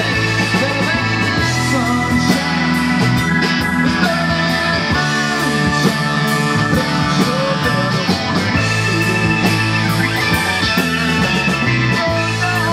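Rock band playing live: electric guitar, bass, keyboards and drums over a steady drumbeat, with some bending guitar notes.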